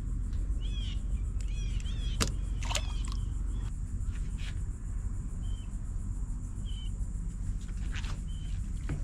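Short high chirps of birds, several in quick succession in the first two seconds and single ones spaced out later, over a steady low rumble, with two sharp clicks about two and three seconds in.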